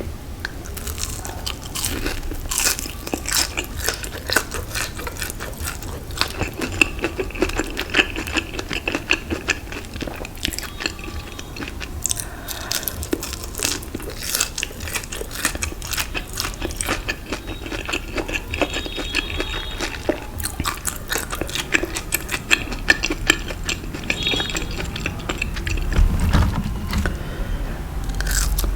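A person eating close to the microphone: repeated biting and chewing, with many short, sharp crunching clicks.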